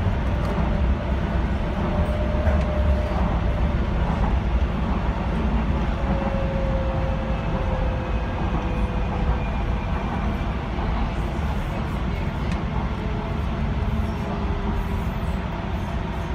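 Docklands Light Railway train running on elevated track, heard from inside the front car: a steady low rumble of wheels on rail with a faint electric traction-motor whine that slowly falls in pitch as the train slows toward a station.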